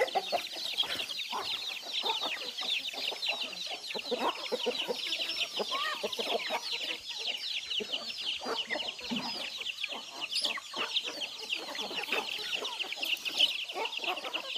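Domestic hens clucking among a brood of chicks that peep continuously: many short, high peeps overlap without a break, with the hens' lower clucks scattered through them.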